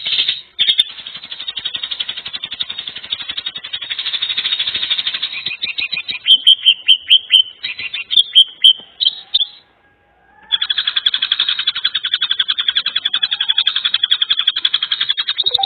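Animal calls: a fast, buzzy pulsed trill, broken in the middle by a run of about a dozen loud, separate chirps and a short pause, after which the trill starts again.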